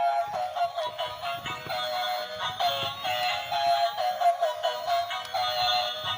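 Cheerful electronic music with a synthesized, high-pitched melody of short notes: a sung-sounding tune, as played by a children's toy or a video soundtrack.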